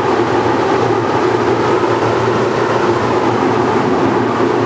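Model trains running on the diorama's track: a steady, even rumble with no breaks.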